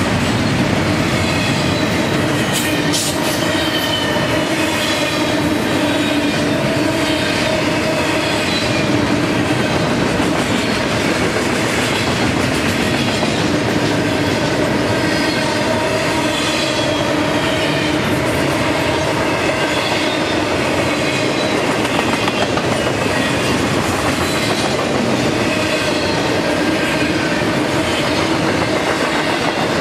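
Freight train cars rolling past close by: a steady, loud rumble and clatter of steel wheels on the rails, with a thin wheel squeal drifting in pitch above it.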